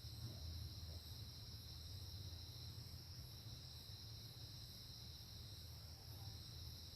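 Faint, steady insect chorus: an even high-pitched drone that does not break, over a low hum.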